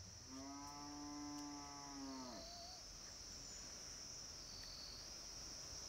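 A single long, steady animal call lasting about two seconds and dropping away at its end, heard faintly over a continuous high-pitched chirring of insects.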